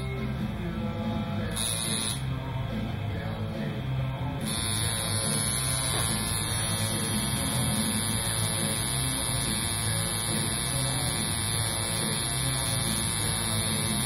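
Coil tattoo machine buzzing steadily as it works the needle into the skin of the face.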